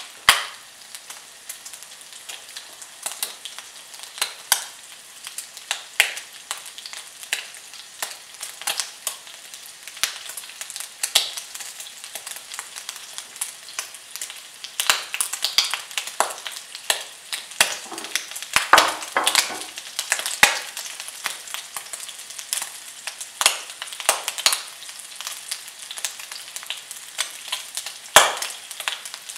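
Three thin slices of bacon frying in a pan: a steady sizzle of hot fat with frequent sharp pops and crackles, busiest a little past the middle.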